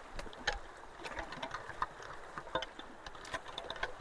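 Creek water rushing through a culvert, with irregular clicks and knocks scattered over it.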